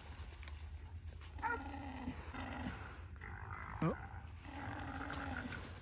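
Faint dogs baying: long, steady drawn-out bays repeated every second or so, with a short, sharply rising cry about four seconds in. These are hunting dogs baying feral hogs, the call that tells the hunters the dogs have found hogs.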